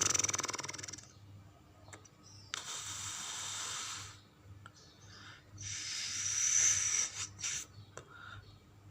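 Invented Shastasaurus creature calls: three breathy, hiss-like exhalations. The first opens with a quick rattle, the second is steady and a second and a half long, and the third carries a thin high whistle, with a few short snorts after it.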